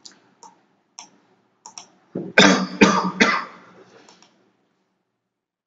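A few soft computer clicks, then about two seconds in a person coughs and clears their throat in three harsh strokes over about a second.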